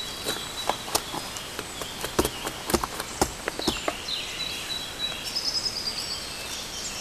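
Hatchet blade cutting into wood: irregular sharp knocks and cracks, most of them in the first few seconds. Birds chirp high up about five seconds in.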